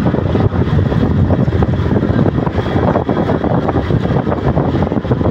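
Steady rush of wind on the microphone over the engine and road noise of a vehicle travelling at speed.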